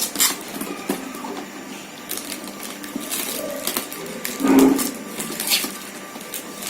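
Irregular small clicks and rustling from handling plastic parts and packaging, with a louder knock about four and a half seconds in.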